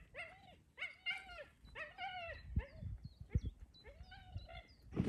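A dog yipping and whining in a string of short, arched, high calls, two or three a second.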